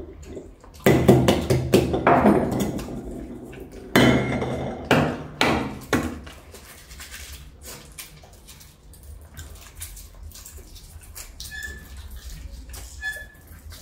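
Boiled eggs being knocked against crockery and the tabletop to crack their shells, a series of sharp knocks with the loudest about a second in and around four seconds, followed by quieter clicks and crackle of shell being peeled off by hand.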